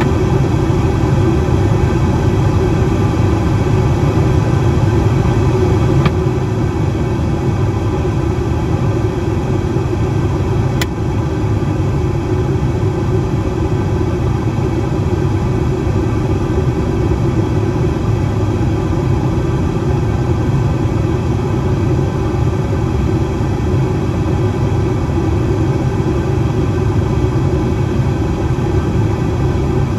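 Steady cabin noise of an airliner in flight: a deep engine and airflow rumble heard through the window seat. It is slightly quieter after about six seconds, and there is one faint click about eleven seconds in.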